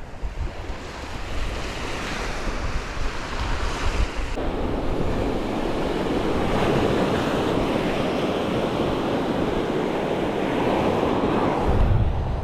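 Gulf surf washing onto the beach, with wind buffeting the microphone in low rumbles.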